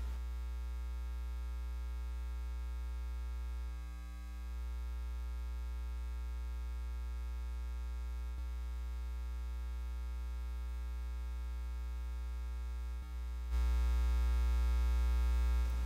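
Steady electrical hum, like mains hum: a low drone with a stack of even overtones. It dips briefly about four seconds in and jumps louder near the end. In the story it is a mysterious hum, first taken for a light, that seems to come from the basement crawl space and grows louder near its door.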